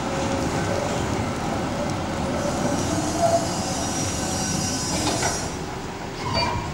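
Articulated tram passing close, its wheels rumbling on the street track. A high wheel squeal rises over it from a few seconds in and fades near the end, with a couple of sharp knocks partway through.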